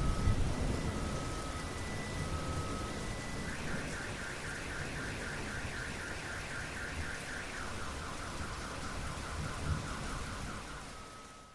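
Steady rain with a car alarm sounding through it. The alarm cycles from a slow two-tone alternation to a fast high warble about three and a half seconds in, then drops to a lower warble. The rumble of a thunderclap dies away in the first second, and everything fades out at the end.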